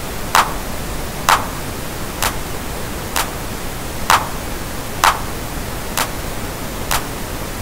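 Steady pink noise playing under a looped percussion sample: a short, sharp electronic hit repeats about once a second, some hits fuller than others.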